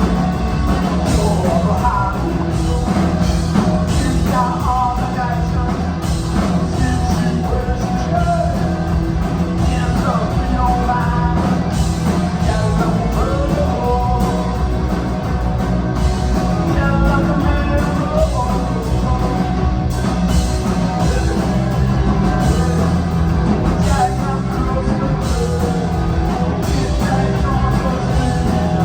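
Rock music with a singing voice, loud and steady throughout.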